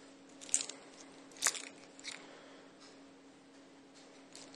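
Handling noise as a steel-bracelet wristwatch is held and turned in the hand: three short rustling scrapes, the loudest about one and a half seconds in, over a faint steady hum.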